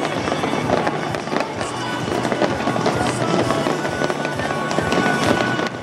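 Fireworks display going off in a dense run of crackles and pops, with music playing underneath.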